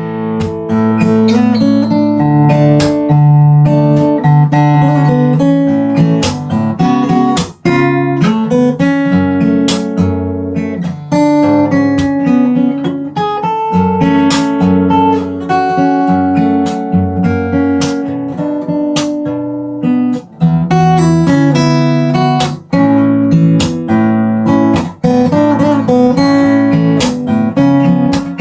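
Bentivolio 1501 all-solid acoustic guitar, with Indian rosewood back and sides, playing a chord progression. The chords change every second or two, with sharp strummed strokes among the ringing notes.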